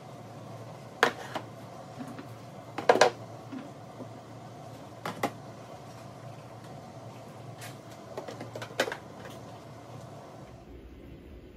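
Plastic food-storage containers being set into a drawer's organizer bins: about five short plastic clacks and knocks, the loudest about three seconds in, over a steady low hum.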